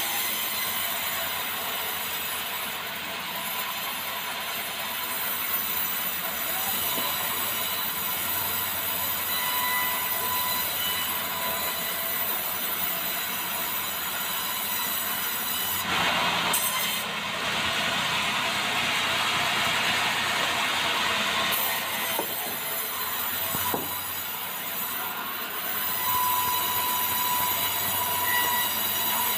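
Sawmill saw running and cutting through a barkless meranti beam: a steady whine with a harsh hiss. The cut grows louder and harsher for several seconds about halfway through.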